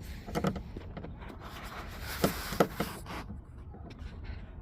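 Light clicks and taps with a scraping rustle: hands working screws and a screwdriver at a car's interior door panel.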